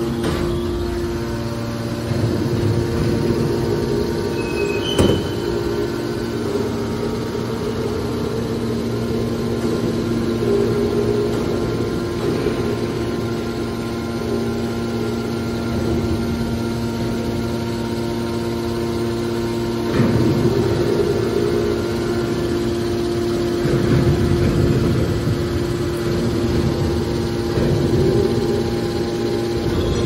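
Hydraulic baler's electric motors and hydraulic pumps running with a steady hum. There is a sharp knock about five seconds in, and louder, rougher stretches around twenty and twenty-four seconds in.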